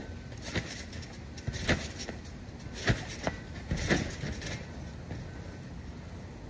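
Bouncing on a wet trampoline: about five sharp thumps of landings on the mat, roughly a second apart, the loudest about three seconds in. The thumps stop about four and a half seconds in.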